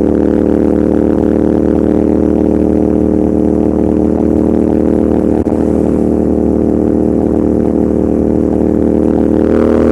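Royal Enfield Continental GT650's parallel-twin engine and exhaust running under way at a steady, unchanging pitch, with a brief dip about halfway through.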